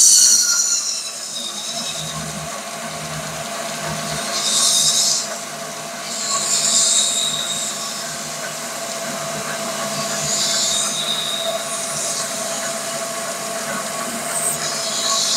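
Mini lathe running steadily, with an even whine, while a strip of emery cloth is held against a spinning brass cutlass bearing to polish it. The abrasive gives a loud, high hissing squeal at the start that fades within a second, then comes back in short hissing spells four times.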